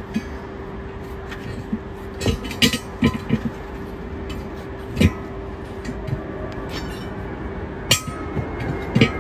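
Metal tools and parts clinking and knocking now and then, a handful of sharp strikes, over a steady machine hum that stops near the end.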